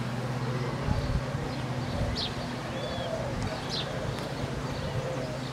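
Birds calling in the background: short high chirps about once a second and soft low cooing of doves, over a steady low hum.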